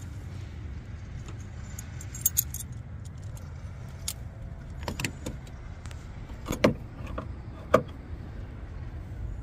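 Light metallic clinks and taps as a small steel door bracket and a screwdriver are handled against a car door, a few scattered clicks with the loudest two near the end, over a steady low rumble.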